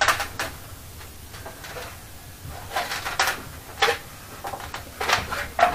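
A scattered series of short knocks and clicks, about seven in all, like handling noise.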